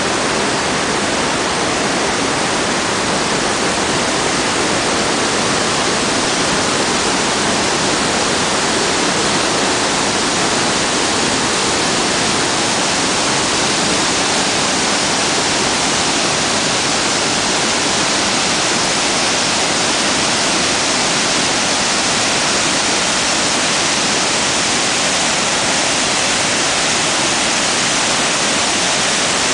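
Steady, loud rush of white water from the Iguazú Falls and the rapids above them: an even hiss with no let-up.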